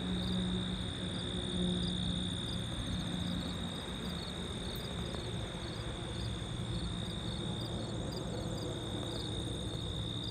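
Insects calling: a steady, high, unbroken buzz with faint chirps repeating evenly above it, over a low rumble. A low hum drops out about three and a half seconds in.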